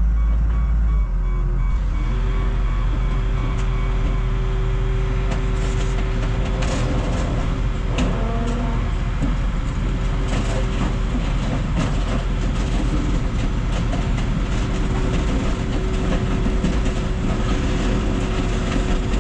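Diesel engine of a fork-equipped loader running steadily while it sets a car body into a car crusher and backs away, with a steady whine coming in about two seconds in and one sharp metal clank about eight seconds in.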